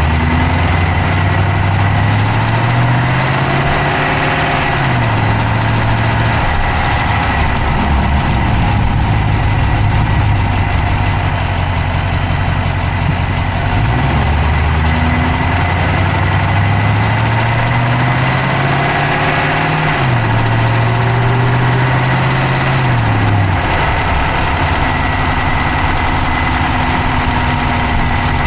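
Dodge Charger Hemi V8 running at idle, heard close up in the engine bay, with a fast clicking over the engine sound. A low hum steps up in pitch, holds for several seconds and drops back, twice.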